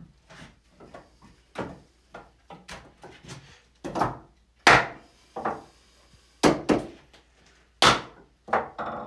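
Wooden mallet knocking on the wooden parts of a pole lathe: a run of separate wood-on-wood knocks, light at first, then several hard strikes from about four seconds in.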